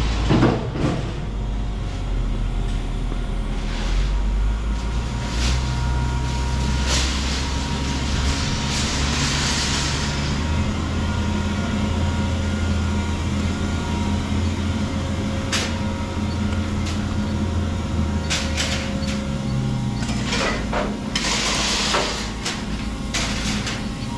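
Rebar shear line machinery running with a steady low rumble, with clanks now and then and two bursts of hiss, about nine seconds in and again near the end.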